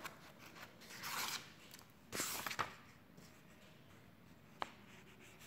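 Faint rustling and scraping in two short bouts, then a single sharp click near the end.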